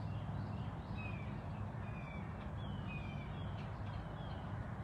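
Birds calling in a series of short, faint, falling chirps over a steady low rumble.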